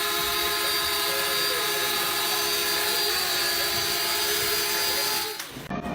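A steady whine of a running motor, holding several fixed tones, that stops abruptly about five and a half seconds in.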